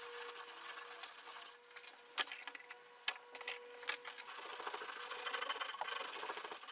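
Sandpaper wrapped around a lollipop stick rubbed quickly back and forth against the inside edge of a bandsawn wooden box collar, hand-sanding the cut smooth. The strokes stop for about two seconds partway through, with a couple of light taps, then resume.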